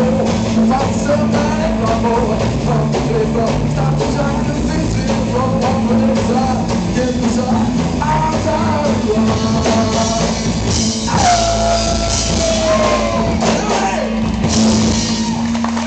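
Live rockabilly band playing: electric guitar, upright double bass and drum kit with sung vocals, loud and driving. Past the middle a long note slides down and is held.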